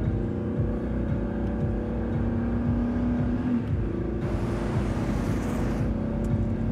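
Car engine running steadily while driving, heard from inside the cabin, with a low road rumble underneath. A rushing noise swells about four seconds in and fades about two seconds later.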